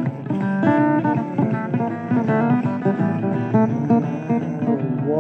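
Guitar playing an instrumental blues passage, plucked notes moving quickly with no singing.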